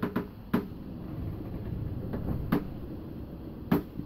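A handful of sharp knocks and clicks at uneven intervals over a steady low rumble.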